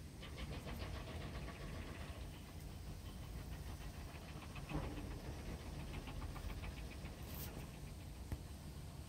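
Labrador retriever tearing and chewing grass, faint rapid crunching in two runs, about five or six a second, over a steady low rumble.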